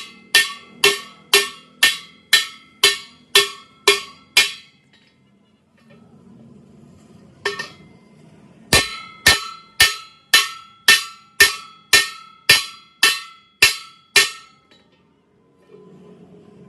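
Hammer striking steel in a steady series of ringing blows, about two a second. A run of about nine blows, a pause of a few seconds with a single blow, then another run of about a dozen.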